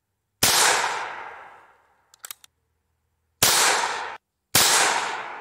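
Homemade 3D-printed closed-bolt GB22 .22 LR pistol firing three single shots, about half a second in, then about three and a half and four and a half seconds in. Each shot is sharp and dies away in a long tail. A few faint clicks come between the first and second shots.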